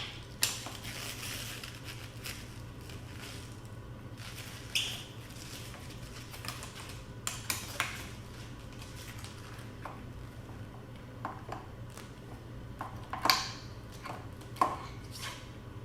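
Hand-tool work on a motorcycle handlebar: a 5 mm hex key and small metal parts clicking and clinking as the stock brake master cylinder is unbolted and lifted off. Scattered taps throughout, with the sharpest clinks about 13 and 14½ seconds in, over a steady low hum.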